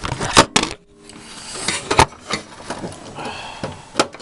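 Sharp clicks and light clatter of small hard plastic and metal parts being handled inside a desktop computer as a cable connector is pulled off, with a louder click about two seconds in and another near the end.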